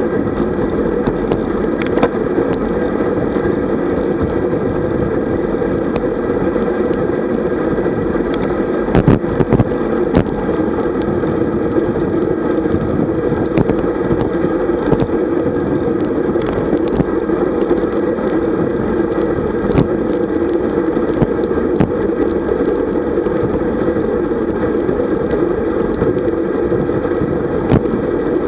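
Steady wind rush and tyre-on-asphalt hum on a camera carried by a road bike riding at about 45 km/h, with scattered short clicks and knocks.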